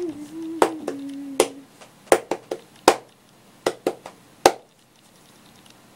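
A series of sharp clicks or taps, about eight and irregularly spaced, over the first four and a half seconds. A faint low hum runs under them for the first second and a half.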